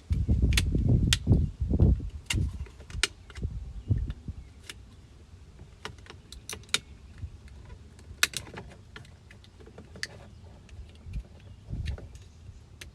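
Scattered sharp plastic clicks and small rattles as a cracked window switch housing is pried and worked apart from its switch module. There are low handling thumps in the first two seconds, then sparser single clicks.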